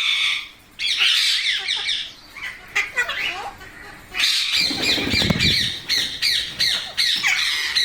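Several rose-ringed parakeets (Indian ringneck parrots) squawking and chattering in quick, overlapping calls, with a brief lull before two seconds in and a short low rustling bump about five seconds in.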